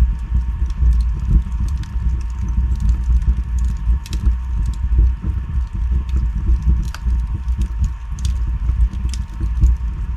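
Log fire burning in a fireplace: a steady low rumble of flames with irregular sharp crackles and pops from the burning wood.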